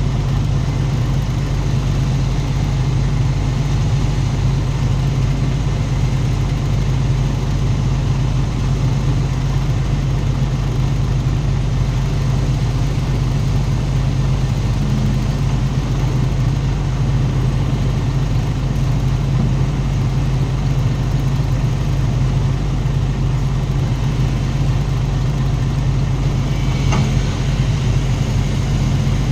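SANY SY200C crawler excavator's diesel engine running at a steady speed, a constant low drone. A single short knock is heard near the end.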